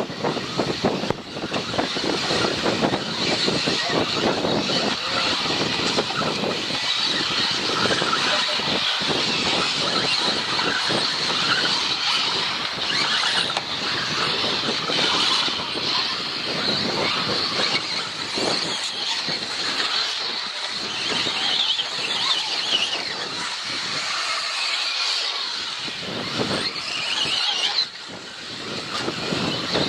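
Several radio-controlled 4WD off-road buggies racing around the track: a continuous, high-pitched whine mixed with the hiss of tyres. It dips briefly near the end.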